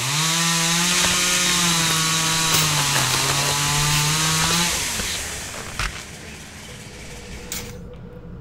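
Chainsaw running steadily for about four and a half seconds, dipping slightly in pitch near the middle, then dying away; a couple of faint knocks follow.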